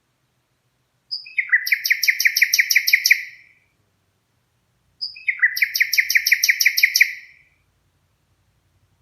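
Red-rumped parrot singing: two trilled phrases a few seconds apart, each a short lead-in note and then a rapid run of about nine clear whistled notes.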